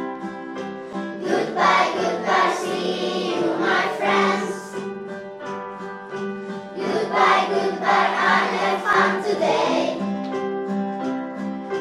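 A class of young children singing an English goodbye action song along with a recorded song and its instrumental backing.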